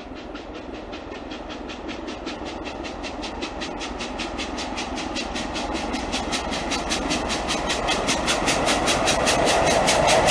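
Steam locomotive 6201 Princess Elizabeth, a four-cylinder LMS Princess Royal class Pacific, working hard at speed: a rapid, even beat of exhaust chuffs over the running of the train, growing steadily louder as it approaches.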